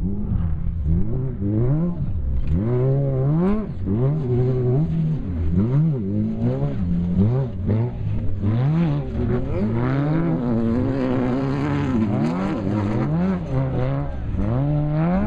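Off-road race buggy or truck engine revving hard, its pitch rising and dropping again and again as the throttle is worked.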